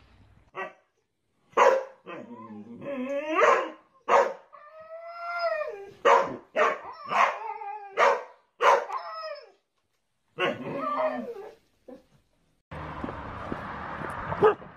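Dogs barking and howling at each other, a Siberian husky and a boxer: short sharp barks mixed with drawn-out howls that slide up and down in pitch, for about eleven seconds. Near the end a steady rushing outdoor noise takes over.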